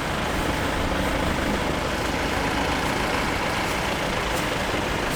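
Safari jeep's engine running steadily.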